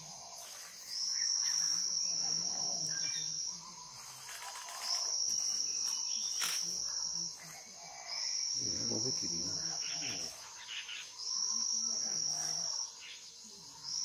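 Insect buzzing in a steady high-pitched tone, in bouts of about two and a half seconds repeated every three to four seconds: four bouts, with a fifth starting at the very end.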